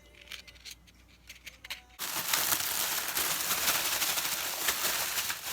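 Plastic packaging crinkling and rustling as it is handled and torn open. It starts suddenly about two seconds in, after a few faint clicks.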